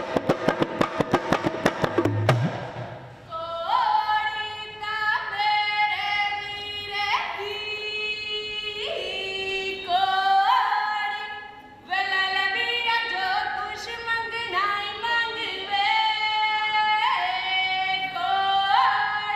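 A two-headed hand drum beaten in a quick, even rhythm, about five strokes a second, that stops about two seconds in. Then a woman sings a Punjabi giddha folk song solo and unaccompanied, each phrase starting with an upward scoop.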